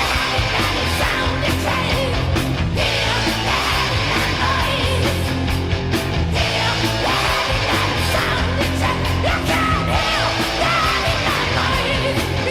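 Heavy metal band playing: distorted electric guitars, bass and drums, with shouted or sung vocals.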